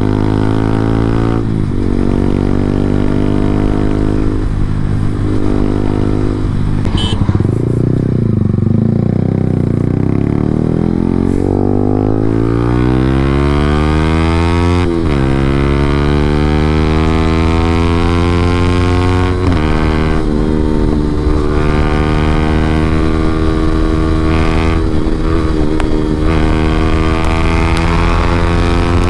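Yamaha R15M's single-cylinder engine running through an SC Project full-system aftermarket exhaust, heard from the rider's seat at speed. The engine note sags and settles for the first third, then climbs steadily as the bike accelerates hard. The pitch drops sharply at upshifts about halfway through, about two-thirds through and just before the end.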